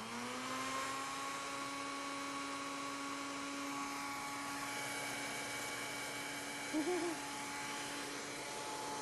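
Countertop blender motor running steadily, blending a thick sauce of water and almond butter, with a brief louder wavering sound about seven seconds in.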